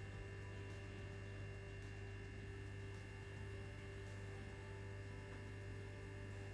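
Steady low electrical hum with a fainter, higher steady tone above it: background room tone.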